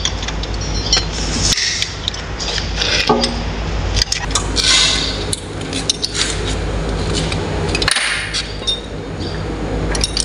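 Metal hand tools clinking, tapping and scraping against a Mitsubishi diesel forklift engine block as wrenches work bolts loose, with scattered sharp metal knocks.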